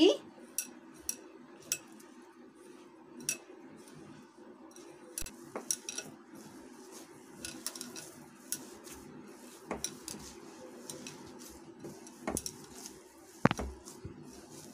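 Biscuit-crumb dough being kneaded by hand in a glass bowl: irregular light clicks and knocks as the glass bowl is knocked by fingers, ring and bangle while it is worked, over a faint steady hum. A stronger knock comes near the end.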